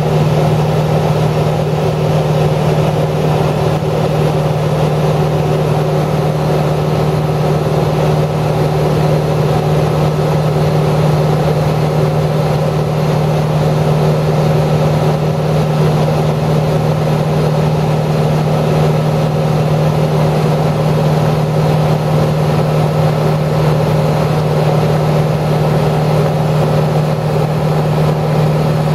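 Steady, loud machine hum with a strong low drone that does not change.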